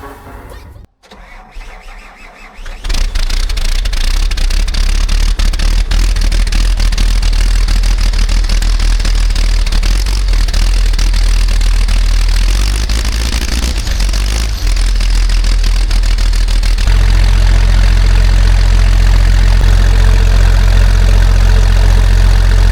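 Large diesel excavator engine starting about three seconds in, then running steadily with a deep drone. It steps up in speed and loudness twice as it is throttled up.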